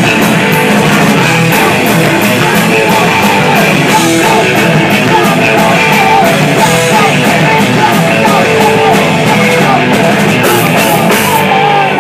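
Live rock band playing loud: distorted electric guitars, a drum kit with cymbals hit in a steady beat, and a lead vocal, heard from the crowd in a small club.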